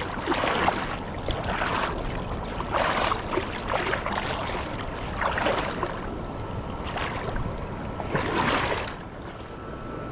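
River water sloshing and splashing in repeated surges, about one every second or so, as of someone wading upstream; the last surge, near the end, is the loudest before it settles down.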